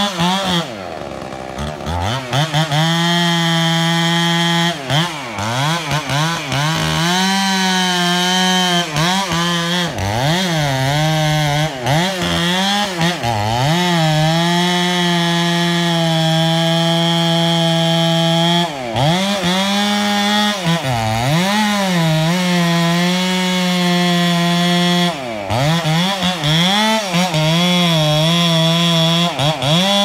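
Gas chainsaw with a long bar cutting into the base of a large tree trunk to fell it, the engine running hard throughout. Its pitch repeatedly dips and recovers as the saw is worked in the cut, with short drops about a second in and a few more times later.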